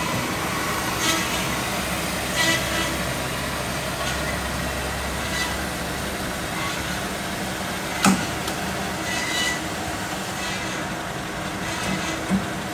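Addison S-300HB automatic bandsaw running with a steady mechanical noise, short high squeaks every second or two, and a sharp click about eight seconds in.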